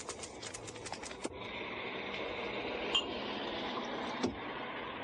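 Typewriter keys clattering in quick succession, several strokes a second, for about the first second, then stopping. A steady hiss remains, with two single clicks later on.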